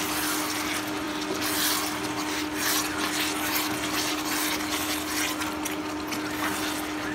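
Chicken curry sizzling in a pan, a steady hiss with a constant hum underneath.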